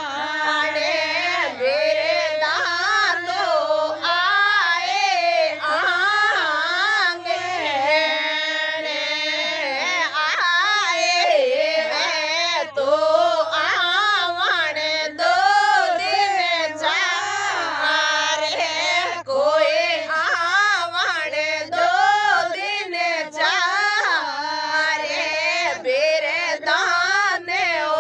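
A woman singing a Rajasthani wedding folk song (vivah geet) in long, wavering, ornamented notes.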